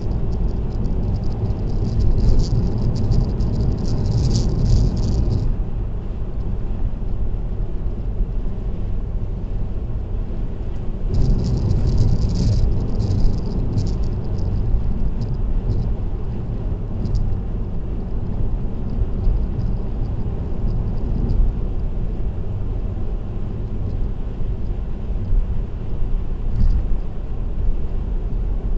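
Car cruising on an expressway, with steady tyre and road noise heard through a dashcam. Twice, first a few seconds in and again around the middle, a high rattle sets in for a few seconds, with a few single ticks later on.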